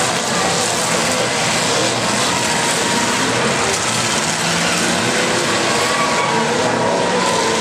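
Engines of several demolition derby cars running and revving together in a loud, dense, unbroken racket, their pitch wavering up and down as the drivers rev.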